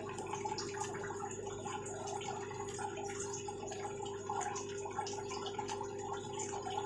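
Aquarium equipment running: a steady electric pump hum with water trickling and dripping in the tanks. Scattered light crinkles from a foil medicine sachet being turned over in the hands.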